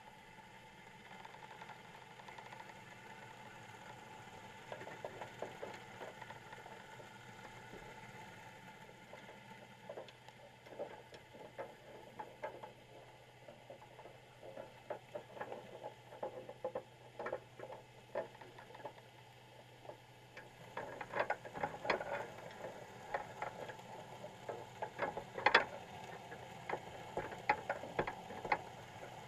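Underwater, inside a wire crab pot: irregular clicks and scratches, typical of crabs clambering over the wire mesh and bait cage, over a faint steady hum. The clicking grows busier and louder about twenty seconds in.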